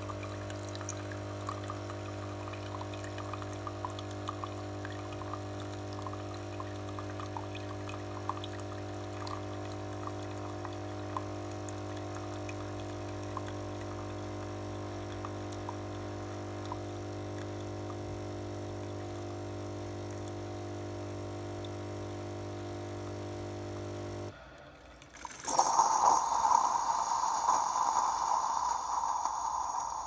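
Bosch Tassimo coffee machine running its cleaning cycle: the pump hums steadily while water trickles into a glass under the spout. About 24 seconds in the hum stops and, after a brief pause, a louder hissing sputter follows.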